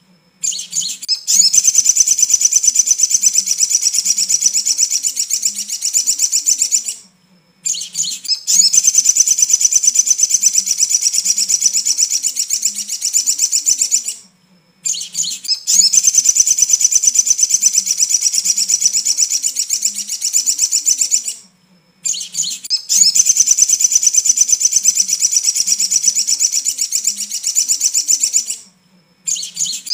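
Sogok ontong song played as a lure (pancingan) recording to prompt a caged bird to sing. It comes as long bursts of a rapid, high-pitched trill, each about five to six seconds, repeating four times with short pauses between, and a fifth burst begins near the end.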